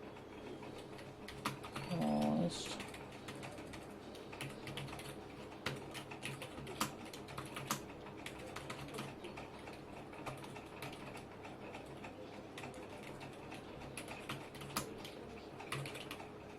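Typing on a Logitech MK240 wireless keyboard: irregular, fairly quiet key clicks from its low-noise keys, which are quieter than a regular keyboard's but not silent. A brief pitched sound comes about two seconds in.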